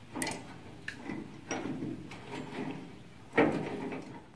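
Metal clicks and clunks from hands working a steel tailgate latch and handle assembly, a few separate knocks with the loudest near the end.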